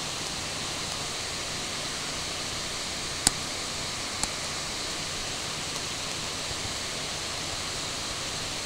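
Steady hiss of room and microphone noise with a faint low hum, broken by one sharp click about three seconds in and a fainter click about a second later.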